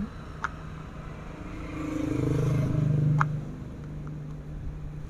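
An engine swells up about a second and a half in and fades away again about two seconds later, over a steady low hum. Two small clicks are heard, one near the start and one as the engine fades.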